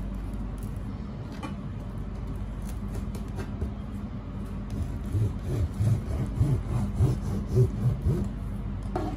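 Serrated bread knife sawing through the crust of a sourdough loaf on a plastic cutting board. The strokes come about two or three a second in the second half, over a steady low hum.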